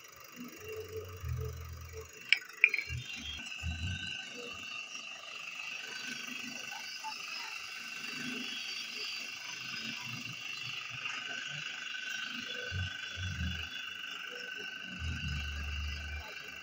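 Bench drill press boring a hole through the steel blade of a khurpa (hand hoe): a steady whine, with two sharp clicks a little over two seconds in and dull low thumps now and then.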